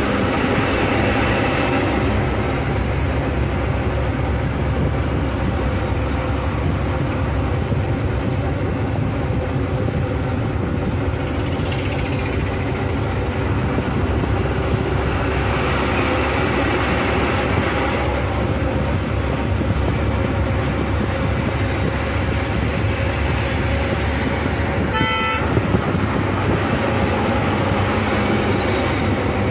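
Steady engine and road noise heard from inside a moving bus on a highway. About 25 seconds in, a vehicle horn gives one short toot.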